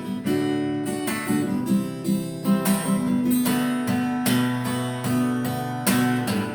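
Acoustic guitar strummed in a steady rhythm, about three strums a second, with the chord changing a few times.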